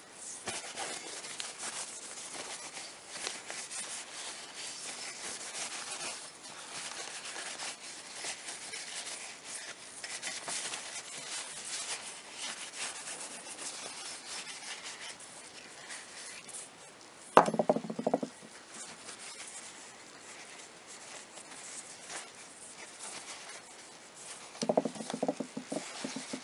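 Paper towel rubbing and scrubbing over the metal parts of an M16A1 bolt carrier group as they are wiped clean. There is a sharp metallic clink, the loudest sound, about two-thirds of the way through, and a short run of clinks near the end as the steel parts are handled.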